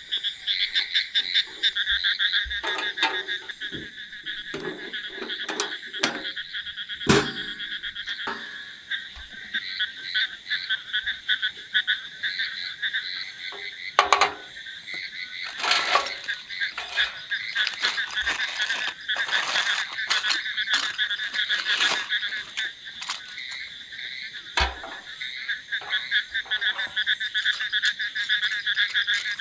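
A dense chorus of frogs calling continuously on a wet night, with short clinks and knocks from metal grill parts and skewers being handled, the sharpest about 7, 14 and 25 seconds in.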